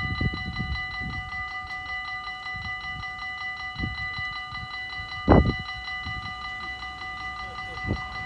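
Dutch level-crossing warning bell ringing rapidly and evenly while the barriers are down, signalling an approaching train. Low rumbles of wind on the microphone come and go beneath it, with a louder gust about five seconds in.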